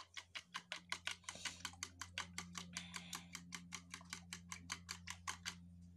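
Fork beating wet pancake ingredients in a plastic bowl by hand, clicking rapidly against the bowl about six times a second. The clicking stops briefly just before the end.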